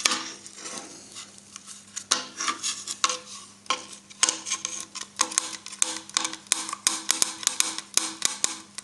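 Irregular metallic clicks and clinks from handling a welding earth clamp while a thick welding earth lead is pulled through it, sparser at first and coming thick and fast from about five seconds in.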